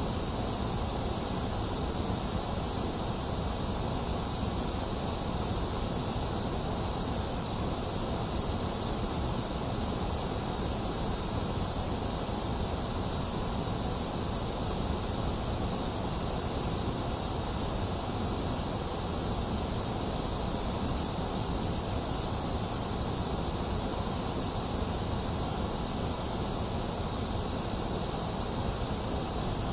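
Box fan running together with steady rainfall: an even, unchanging hiss with no breaks or thunder.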